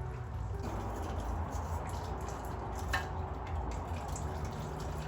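Gear oil dripping and trickling out of the opened rear differential, with a single light knock about three seconds in.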